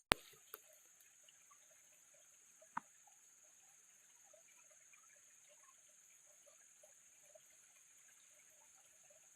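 A steady high-pitched insect chorus, crickets, with faint scattered ticks or drips under it. A sharp loud click comes just after the start, a smaller one half a second later, and another near three seconds in.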